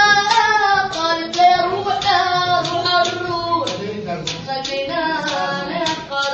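An Arabic song: a singing voice carrying a melody over instrumental music with a steady beat.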